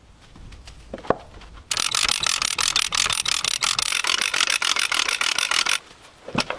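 Rapid mechanical clicking like a ratchet being worked, about eight to ten clicks a second, lasting about four seconds, with a single knock before it and another after it.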